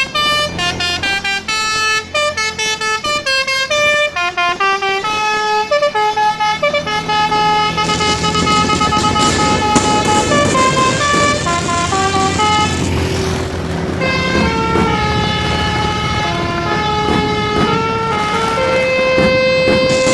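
Basuri multi-tone bus air horn playing a quick melody, note after note stepping up and down. A rushing, crackling noise with sharp cracks joins about eight seconds in.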